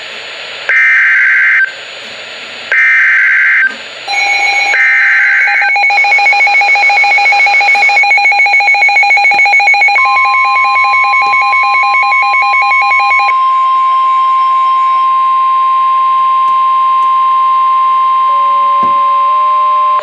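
Emergency Alert System SAME header: three short bursts of harsh digital data screech, about a second apart. It is followed by a rapidly pulsing two-tone alert beep. About halfway through, a steady, loud single-pitch warning tone joins in and holds to the end; this is the 1050 Hz NOAA Weather Radio alarm that opens a severe thunderstorm warning.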